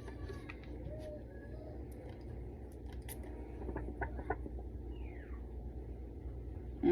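Faint clicks from handling a perfume bottle while it is being tested, over a low steady hum; a woman hums a loud 'mm' at the very end.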